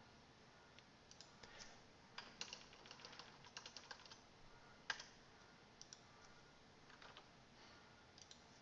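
Faint, irregular clicks of keys being typed, in small quick clusters with one louder click about five seconds in.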